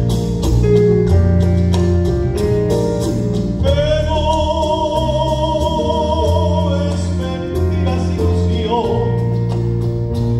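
A tenor singing a bolero with a live orchestra, holding one long note with vibrato from about four to seven seconds in, over a steady bass line and light, even percussion.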